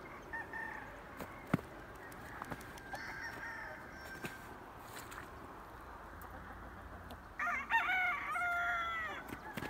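Asil-Hamlin gamecock crowing once, loud, for about two seconds near the end; fainter rooster crowing in the background earlier.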